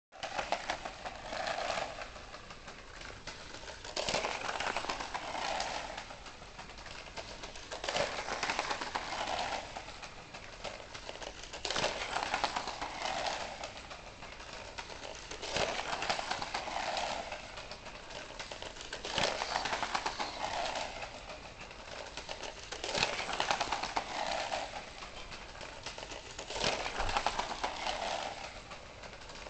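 K'nex toy kart running on a plastic K'nex track: a whirring, rolling sound that swells and fades with a sharp clack, repeating evenly about every four seconds.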